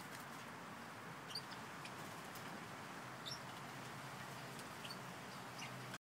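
Small aviary parrots giving a few short, high chirps, spaced a second or two apart, over a faint steady hiss.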